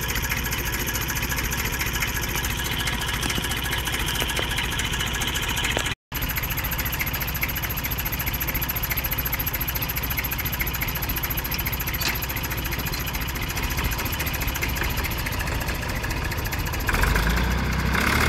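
Diesel tractor engine idling steadily, with an even ticking rhythm. The sound drops out for a moment about six seconds in, and near the end a second tractor engine takes over, louder and deeper.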